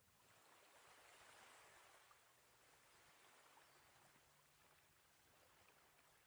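Near silence: the faint wash of small waves lapping at the shoreline, swelling and easing. A faint, steady low hum comes in about two seconds in.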